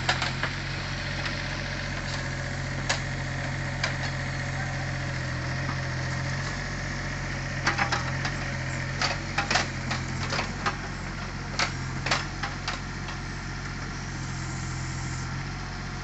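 Excavator engine running steadily, with a scattered series of sharp clanks and knocks in the middle.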